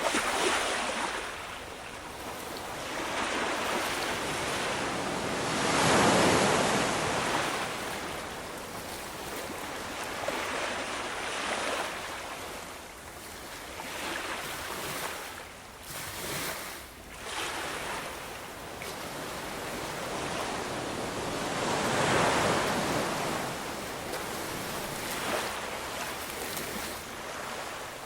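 Ocean waves surging and ebbing, each swell rising and fading over a few seconds, with the biggest breaks about six seconds in and again about twenty-two seconds in.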